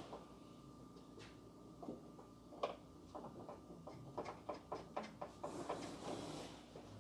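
Faint scattered clicks and knocks of things being handled inside a car's open boot, with a quick run of clicks about four seconds in.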